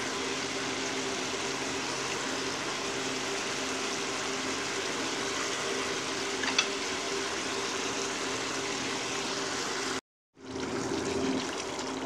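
Thin fish curry gravy boiling in a non-stick pan with pieces of pomfret in it: steady bubbling over a faint low hum. One small tick about six and a half seconds in, and a brief break in the sound near the end.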